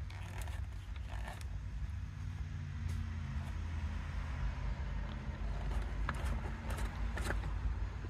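Screwdriver turning out a small screw in a metal electrical box, giving a few faint scattered clicks and scrapes over a low steady background hum.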